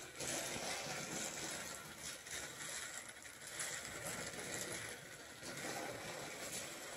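Faint, steady running of small battery-powered light-up toy race cars, their tiny motors and wheels going along flexible plastic track.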